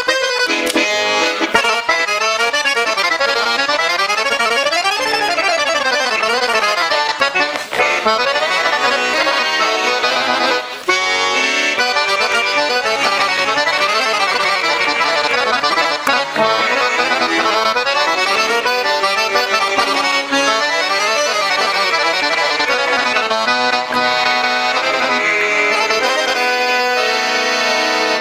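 Paolo Soprani Super piano accordion played solo: a quick treble melody in runs going up and down over bass-button accompaniment, the reeds of a freshly serviced and tuned instrument.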